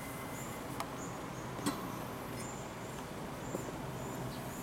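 Outdoor ambience: a steady low background haze with short high chirps repeating roughly once a second, and two brief sharp clicks about one and two seconds in, the second louder.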